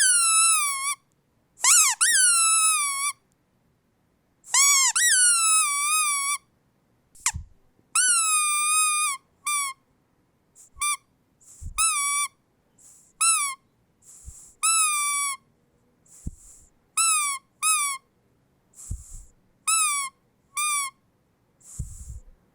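Rubber squeaky dog toy squeezed over and over: each squeeze gives a high, whistly squeak that swoops up then back down, some drawn out for a second or more, others short and quick. Short breathy hisses and soft thumps of handling fall between the squeaks.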